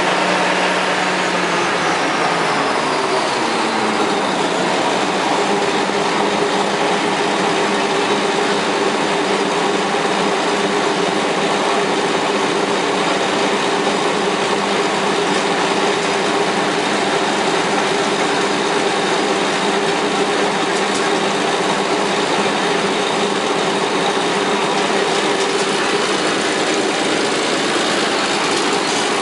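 Vintage Caterpillar D13000 diesel engine running steadily while powering a sawmill. Its pitch slides down between about one and four seconds in, then holds.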